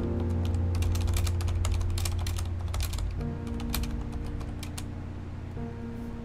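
Fast typing on a Corsair mechanical keyboard: a quick run of key clicks for about three seconds that thins to a few scattered keystrokes, over calm background music.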